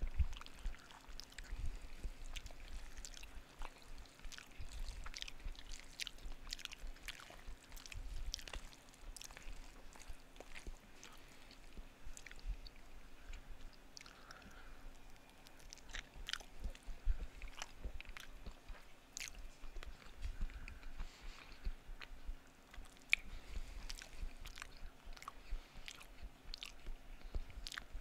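A person chewing casserole close to a headset microphone, with irregular mouth clicks throughout.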